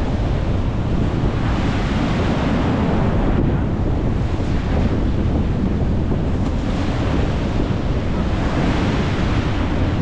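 Sea surf breaking and washing up concrete sea-wall steps, a steady rushing with slow surges, under strong wind buffeting the microphone.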